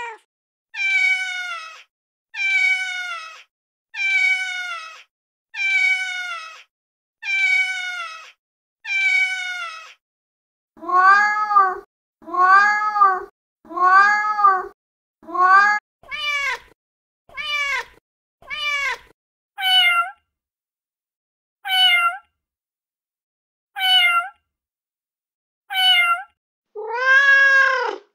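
Recorded domestic cat meows played back one after another from a cat-sound app, each a separate short call with silence between. First comes a run of falling meows about every one and a half seconds. Then a run of shorter meows that rise and fall, then brief high meows, and a longer meow near the end.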